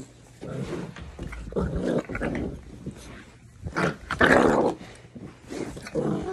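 Puppy growling in several short bouts while being riled up in rough play, the loudest bout a little past halfway.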